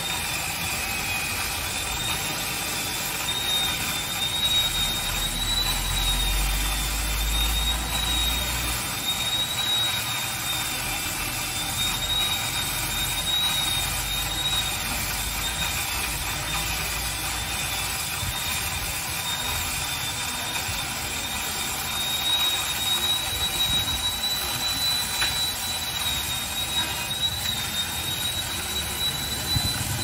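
Large wood chipper running steadily: a thin, slightly wavering high whine over a low engine rumble, with the rumble swelling for a few seconds about five seconds in.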